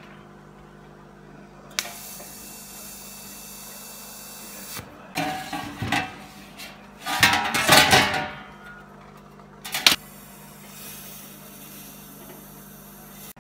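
Welding arc hissing steadily for about three seconds on a thin sheet-metal cylinder, then loud irregular scraping and clanking as the cylinder is handled on a steel bench, a sharp knock, and a fainter stretch of arc hiss near the end.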